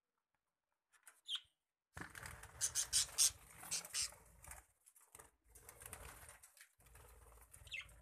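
Budgerigars fluttering and flapping their wings in an aviary, in repeated rustling bursts starting about two seconds in, with a short high chirp before them and another near the end.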